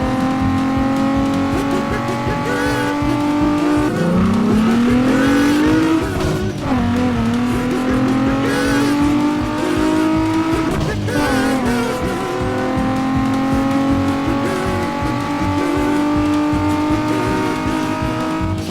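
A vehicle's motor running with a steady pitched hum. Its pitch climbs about four seconds in as it speeds up, creeps higher again, then drops back around eleven seconds and holds steady.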